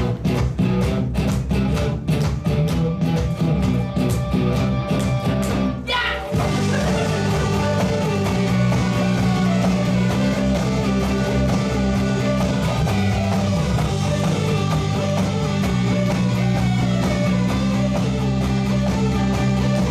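Live rock band playing, led by guitars. Short rhythmic chopped strums for about the first six seconds, then, after a quick rising sweep, the full band comes in and plays on steadily.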